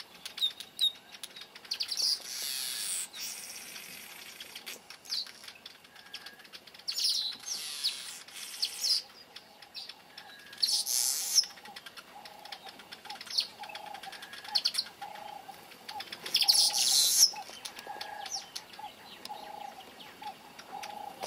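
Village weavers chattering at their nests: harsh, hissy calls of a second or two repeat several times among short high chirps. From about twelve seconds in, a lower short note also repeats about once a second.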